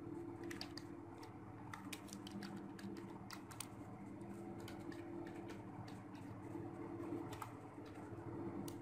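Computer keyboard keys clicking in short irregular runs as text is typed, over a steady low hum.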